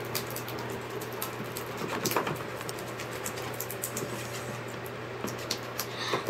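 Hands stirring and squeezing a glue, baking-soda and lotion slime mixture in a plastic tub: a stream of small, irregular clicks and smacks over a low steady hum.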